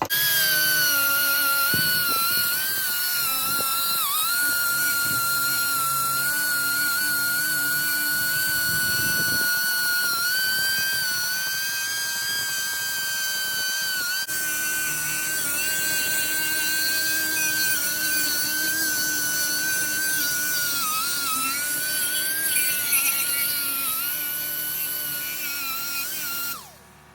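High-speed rotary power tool running steadily with a high-pitched whine, its pitch dipping briefly a few times under load. It starts and cuts off abruptly.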